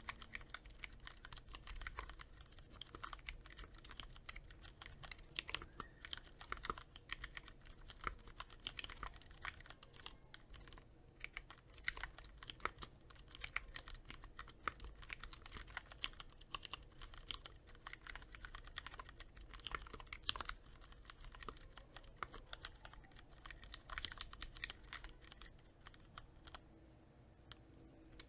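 Typing on a Cherry MX Board 3.0S mechanical keyboard with Cherry MX Red linear switches, lightly lubricated with Krytox 105: a continuous, irregular run of keystroke clacks that thins out near the end.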